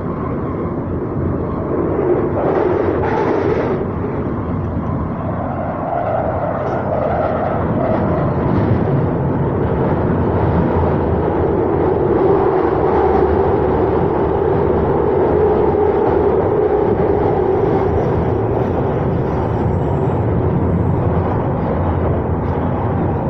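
Running noise heard from inside a 2009 Stock Victoria line Underground train travelling between stations: a loud, steady rumble of wheels on rail with a droning tone that wavers slightly.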